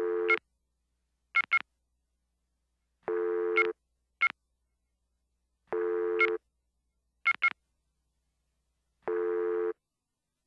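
Telephone-style electronic tones: a buzzy, low tone about half a second long roughly every three seconds, with short, higher double beeps between them.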